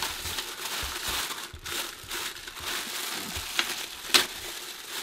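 Thin plastic bag crinkling as hands unwrap small plastic accessories, with two sharper clicks near the end.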